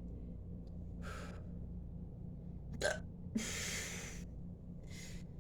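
A woman hiccuping through a bout of painful hiccups: a sharp hiccup a little under three seconds in, with audible breaths before and a longer breath out just after it.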